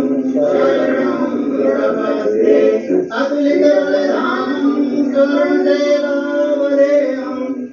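Devotional aarti hymn sung in sustained melodic lines by a group of voices, with a short break about three seconds in and a drop-off at the very end.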